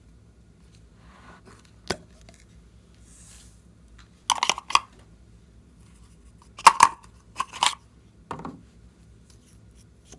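Clear slime being squeezed and stretched by hand, giving sharp pops and crackles in a few short clusters as trapped air bursts.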